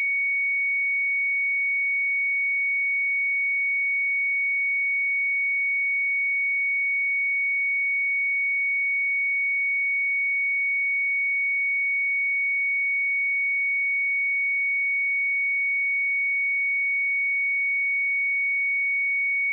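A pure 2232 Hz sine-wave test tone, held steady and unbroken at one high pitch.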